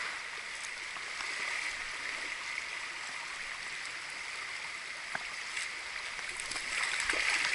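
Fast, shallow river riffle running over rocks: a steady rushing hiss of flowing water, swelling a little near the end.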